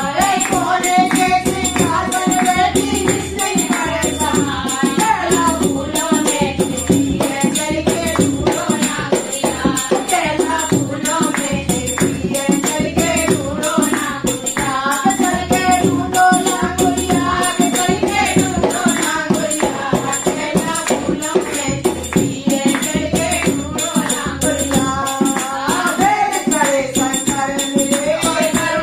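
A woman singing a languriya folk devotional song in Hindi over a dholak drum that keeps a steady beat.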